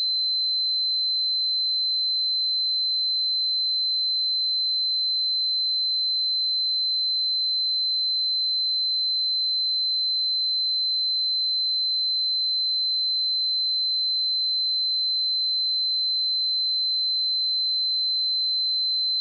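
A pure 4072 Hz sine-wave test tone, one steady high-pitched note held without change.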